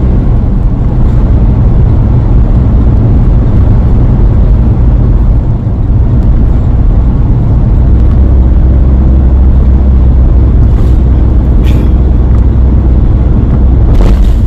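A motor vehicle running: a steady low engine drone with road noise, dipping briefly about five seconds in, then getting heavier and lower from about eight seconds in.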